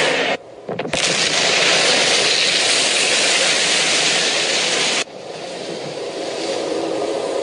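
Loud rushing noise from an edited-in sound effect, starting sharply about a second in. About five seconds in it drops suddenly to a quieter rush that slowly builds again.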